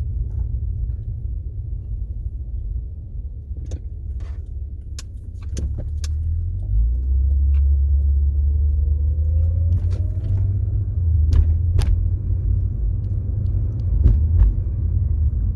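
A 2004 Acura TL being driven: low, steady rumble of road and engine noise that grows louder about six seconds in as the car picks up speed, with scattered light clicks and rattles.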